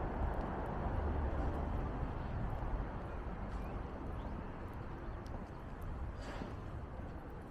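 Outdoor city traffic noise: a steady low rumble of passing vehicles that slowly fades away, with a few faint ticks over it.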